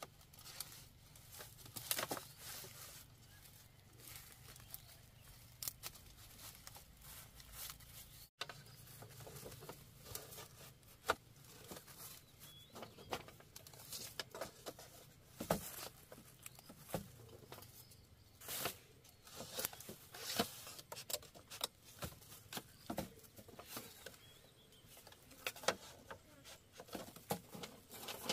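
Bamboo being split and handled by hand: irregular sharp cracks and snaps, some much louder than others, with rustling between them.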